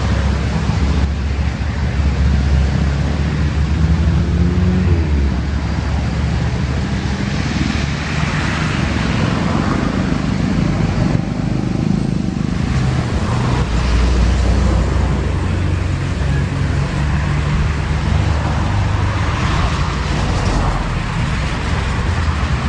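Steady, loud low engine rumble with a haze of road-like noise, the low tones shifting in pitch now and then.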